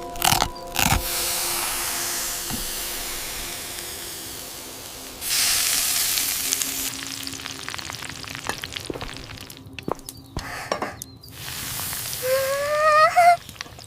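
Fish sizzling as it cooks over a wood fire. The sizzle fades, surges suddenly about five seconds in, then settles into crackles and knocks. A short rising squeaky tone and the loudest knocks come near the end.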